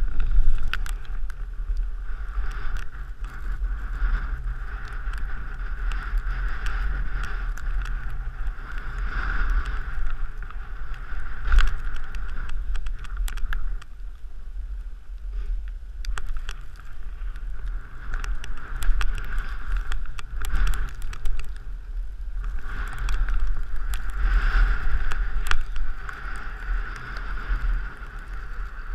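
Wind buffeting a helmet-mounted camera's microphone as a rider slides down a snow slope, with a steady hiss of snow under the rider and scattered small clicks and knocks. The hiss drops away briefly about halfway through and again a little later.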